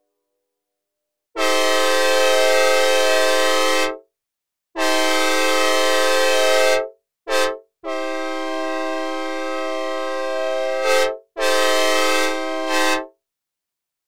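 A synthesized recreation of a Nathan K5LA five-chime train horn, played dry without reverb. It sounds two long blasts and a short one, then a longer, quieter blast that breaks off briefly and ends in a final louder one, in the manner of a grade-crossing signal. Each blast starts and stops abruptly.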